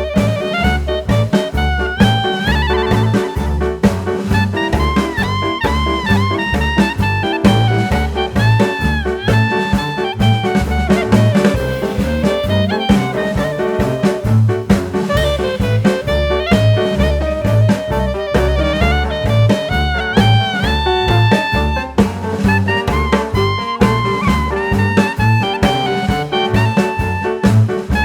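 Background jazz music with brass melody lines over a steady bass and drum beat.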